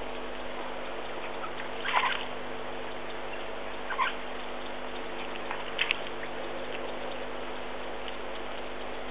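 Open safari vehicle driving slowly along a dirt track: a steady running sound with a few short clicks, about two seconds in, four seconds in, and twice near six seconds.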